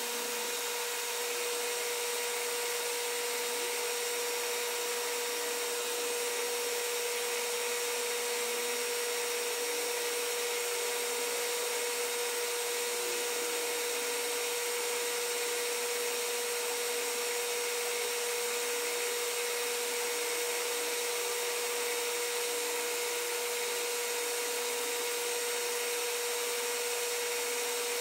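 Metal lathe running at a steady speed, its motor and spindle giving a constant whine over an even hiss, while a hand-held tool rubs and shaves the small white part spinning in the chuck.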